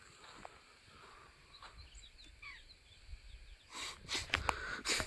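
A few faint, short bird chirps over quiet rural background. About three and a half seconds in, a run of louder rustling and scuffing starts.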